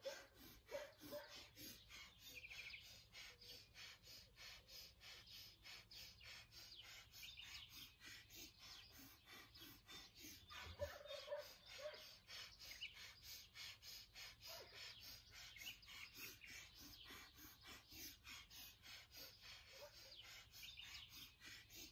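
Kundalini breath of fire: rapid, even puffs of breath, about three a second, kept up without a break. Birds call in the background, a little louder about eleven seconds in.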